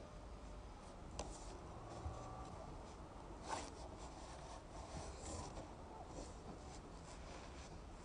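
Faint rustling and scraping of a person's clothing and body against a rough wooden bench as she climbs onto it and lies down, with a few short scrapes, the loudest about three and a half seconds in.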